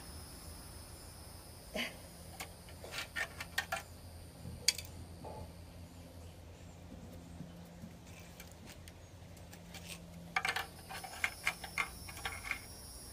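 Scattered light clicks and taps over a quiet room hum, with a quick run of clicks near the end.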